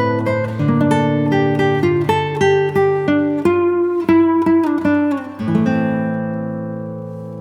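Background music on plucked acoustic guitar, a run of picked notes and chords, with a last chord left ringing and fading over the final two seconds.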